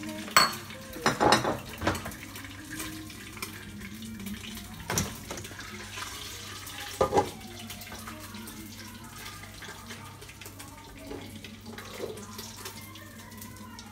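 Clatter of metal cookware: a few sharp knocks and clinks about half a second in, in a cluster between one and two seconds, and again near five and seven seconds, over a faint steady hiss.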